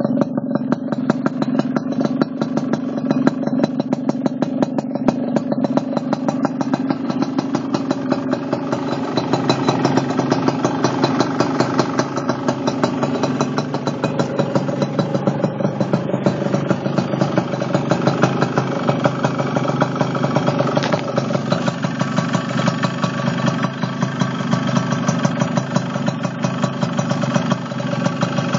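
Suzuki RC100 Tornado GX motorcycle's two-stroke single-cylinder engine running steadily at about idle, its firing pulses coming fast and even.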